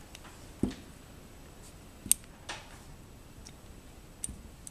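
A few separate small metal clicks and taps from a Winchester Model 70 rifle bolt and a small Allen wrench as the spring-loaded extractor plunger is pressed down and the extractor worked off. The sharpest click comes about two seconds in.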